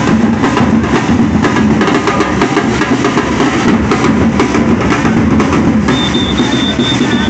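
Street drum corps playing dense snare and bass drum rhythms. A high, steady held tone comes in about six seconds in.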